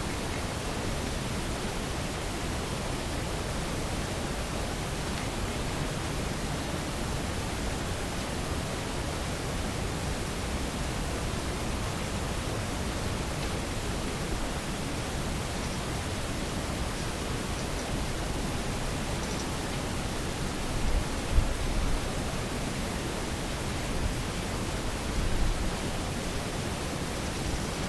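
Steady hiss of a night field recording, with a few short low thuds about three-quarters of the way through.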